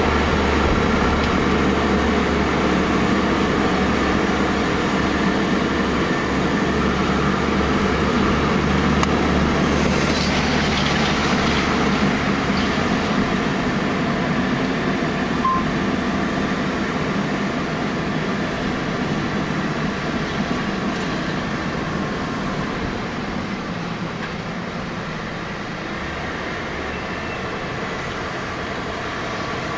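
Heavy haulage truck's diesel engine running steadily at low speed. A deep low rumble fades out about twelve seconds in, and the overall sound eases a little toward the end.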